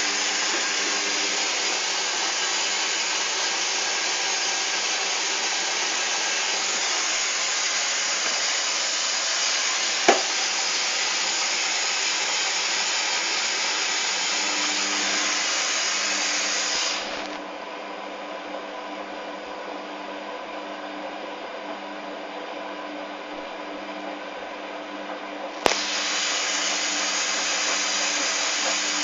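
Hoover Dynamic washing machine on a rinse, with a steady rush of water over a low hum. The rush cuts out abruptly a little past halfway, leaving only the hum, and comes back with a click near the end. A single sharp click sounds about a third of the way in.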